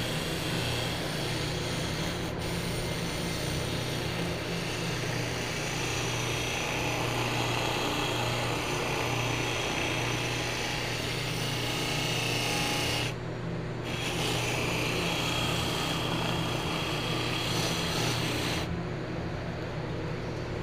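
Electric bench buffer polishing a stainless steel car trim strip with rouge: a steady motor hum under the hiss of the metal rubbing on the spinning wheel. The hiss eases off briefly about two-thirds of the way through and again near the end, as the trim comes off the wheel.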